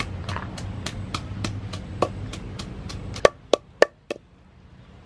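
Wooden pestle pounding chilies in a mortar: a steady run of knocks, about three to four strokes a second. About three seconds in come four louder, slower knocks, then the pounding stops.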